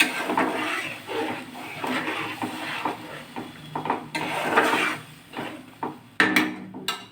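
A cooking utensil stirring and scraping through egg curry in a pan, in a run of uneven strokes, then a few sharp knocks against the pan near the end.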